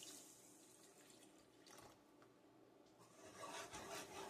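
Faint pour of milk into a pot of roux, then about three seconds in a whisk begins scraping and clicking against the pot in quick strokes.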